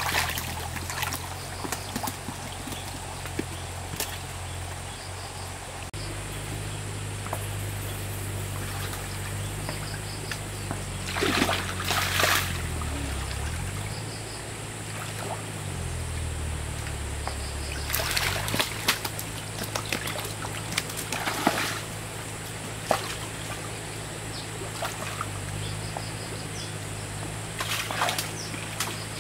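Water trickling and splashing, with a few louder splashes, over the low steady hum of a motor. The hum sags in pitch and recovers twice midway.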